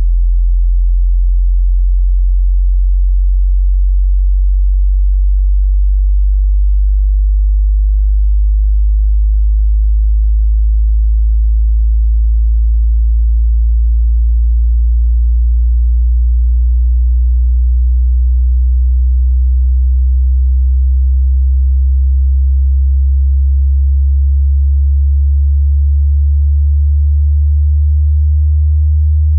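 Pure sine-wave test tone from a 20 Hz to 20 kHz hearing-test sweep, here a very low, steady hum slowly rising in pitch.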